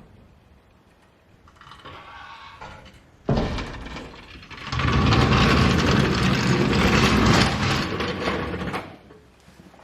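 Air ride suspension on a 1950 Chevy truck working: a sudden rush of air starts about three seconds in, is loudest for about four seconds, then dies away.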